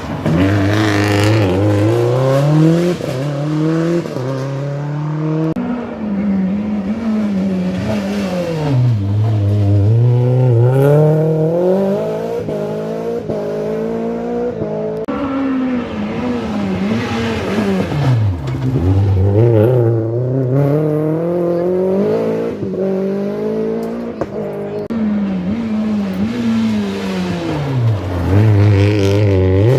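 Rally car engine revving hard through gear changes on a special stage, its pitch repeatedly climbing and dropping back.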